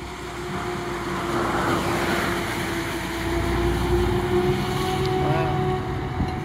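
Claas Jaguar 970 forage harvester and a tractor running as they cut and cart maize: a steady machine drone with a held whine through it. Gusts of wind buffet the microphone around the middle.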